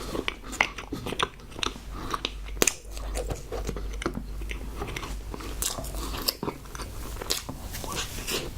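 Close-miked eating sounds: a person chewing and biting food, with irregular wet mouth clicks and smacks throughout.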